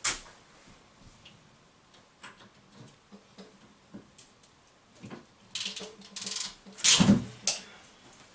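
Hand work on plumbing fittings: scattered light clicks and knocks, a run of short scraping rustles about five and a half seconds in, then a louder clunk about seven seconds in.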